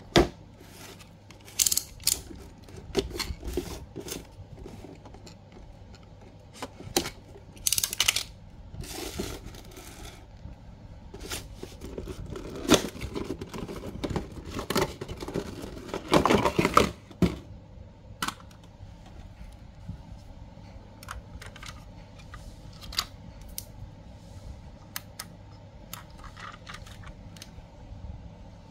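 Cardboard display box with a clear plastic window being handled and opened: irregular rustling, scraping and sharp clicks of cardboard and plastic packaging, busiest and loudest in a stretch around the middle.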